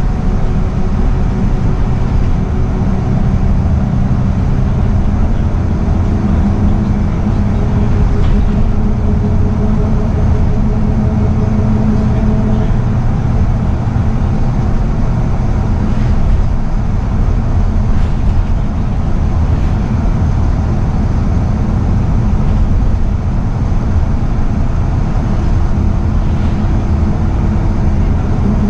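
Scania L94UB single-deck bus with Wright Solar body, heard from inside its saloon while under way: a steady diesel engine and road rumble. The engine pitch rises and settles as it pulls, with a few light rattles.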